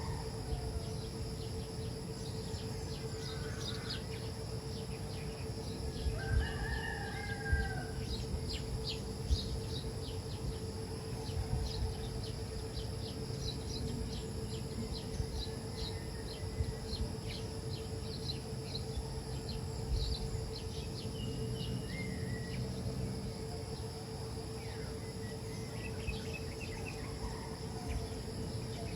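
Rural ambience: a rooster crows a few times, over a steady drone of insects, short bird chirps and a steady low hum.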